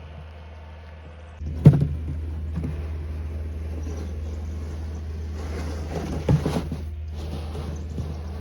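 A vehicle engine running steadily. It comes in abruptly about a second and a half in, with a sharp knock just after and another heavy knock about two-thirds of the way through.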